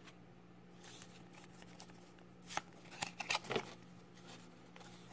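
Faint handling of a stack of Pokémon trading cards fresh from a booster pack: soft rustles and short flicks as the cards are slid and fanned against each other, with a cluster of sharper flicks around the middle.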